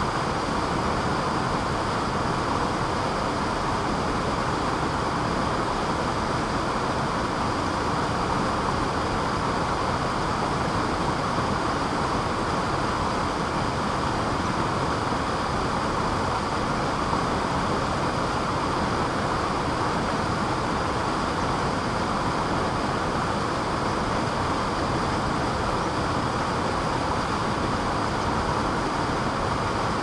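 Waterfall plunging into a pool: a steady, even rush of falling water.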